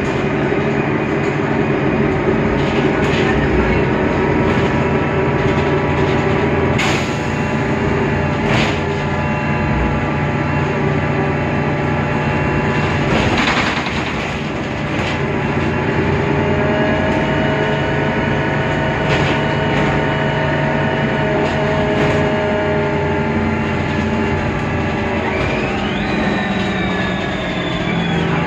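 Mercedes-Benz Citaro O530 Ü bus on the move, its OM 906 hLA straight-six diesel and Voith DIWA automatic gearbox running steadily with several whining tones, and a few sharp knocks along the way. Near the end a high whine jumps up sharply, then slowly falls.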